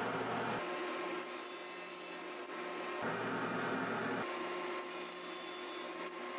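Table saw running, its blade cutting wood, with a steady machine noise; the sound changes abruptly several times as short shots follow one another.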